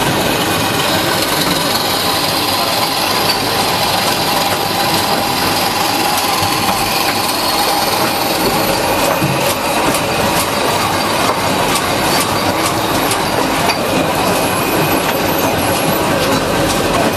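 Stator production machinery running steadily with a constant whine, joined about halfway through by irregular sharp clicks and knocks.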